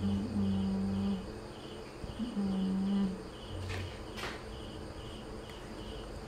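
Crickets chirping steadily in the background, about two to three chirps a second. Over them, a woman hums two low held notes of about a second each in the first three seconds, and there are two brief scratchy rustles near the middle.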